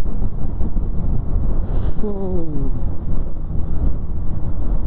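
Bajaj Pulsar NS 200 single-cylinder motorcycle at high speed on the highway, heavy wind buffeting the rider's helmet microphone over the engine. A short falling tone comes about two seconds in.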